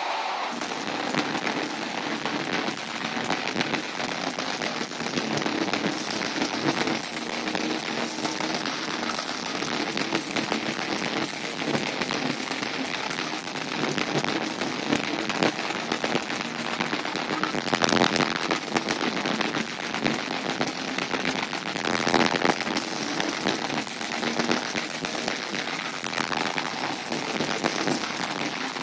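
Heavy metal band playing live at full volume, so distorted by the overloaded microphone that it becomes a dense, crackling wall of noise with a steady beat running through it.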